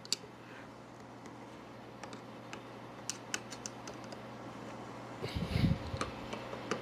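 Phillips screwdriver turning the top-cover screws of a Motorcraft 2100/2150 two-barrel carburetor by hand, with scattered light metal clicks. There is a dull low bump about five seconds in.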